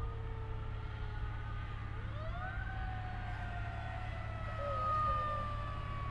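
Fire engine siren wailing, sweeping up in pitch about two seconds in and then slowly falling, with a brief quick warble near the end, over a steady low rumble of engine and traffic.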